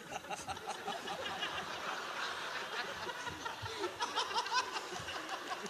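Audience laughing lightly, scattered laughter from many people at once.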